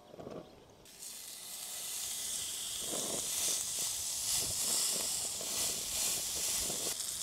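Beef steak frying in hot avocado oil in a cast iron pan: a sizzle starts abruptly about a second in and grows into a steady, loud frying hiss.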